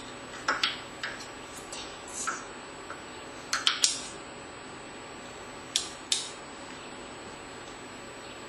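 Light clicks and taps of a plastic toy tea set and beads being handled: a scattering of short, sharp clinks, some in quick pairs, over a quiet room background.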